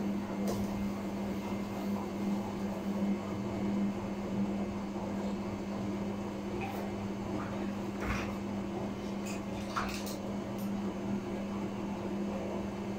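Samsung front-loading washing machine in its wash cycle, the drum tumbling a sudsy load: a steady motor hum under water sloshing, with a few short splashes about two-thirds of the way through.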